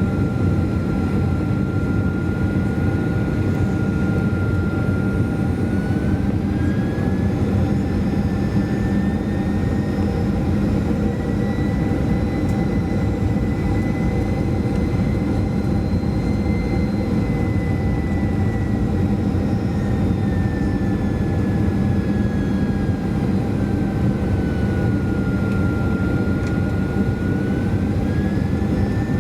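Inside the cabin of a Boeing 737-400: the steady roar of airflow and its CFM56-3 jet engines, with a thin engine whine on top. The whine rises in pitch about six seconds in, holds, sinks again around twenty-five seconds, then rises once more near the end as the engine speed changes.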